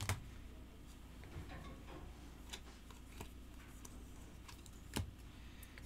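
Faint handling of a stack of glossy chrome baseball cards as they are flipped through one by one, with a few soft clicks, the sharpest about five seconds in, over a low steady hum.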